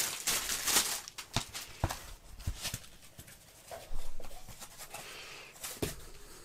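Handling noise as a red tablet case is unwrapped: plastic bag rustling for about the first second, then scattered light taps and clicks and a brief rustle about four seconds in as the case is opened and a protective sheet is lifted off it.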